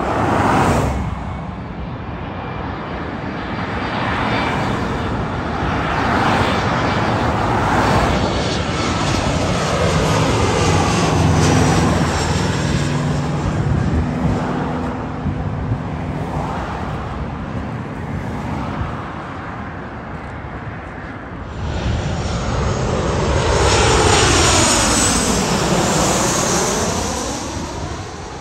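Jet airliners on final approach passing low overhead with steady engine roar: first an Embraer E175 regional jet, then a Boeing 737. The roar swells sharply about three quarters of the way through and carries a sweeping whine that falls and rises again as the 737 goes over.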